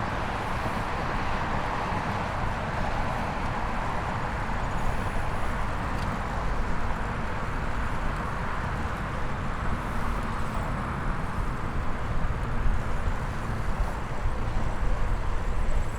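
Steady hiss of road traffic, with an uneven low rumble of wind buffeting the microphone.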